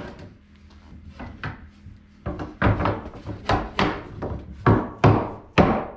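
Mallet tapping a red oak tongue-and-groove floor board, seating the tongue into the groove of the next board. About ten sharp wooden knocks come in quick, uneven succession from about two seconds in, after quieter handling of the boards.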